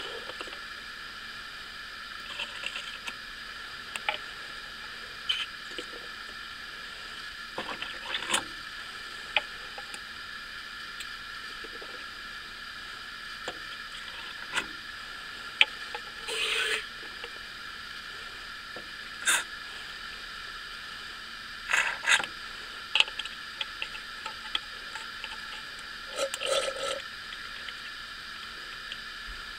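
Plastic syringe sucking old power-steering fluid from the reservoir and squirting it into a plastic cup: scattered light clicks and a few short squirts, over a steady background hiss.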